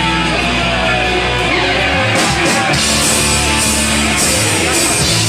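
Live punk rock band playing loud: distorted electric guitars, bass and drums, with cymbal crashes from about two seconds in.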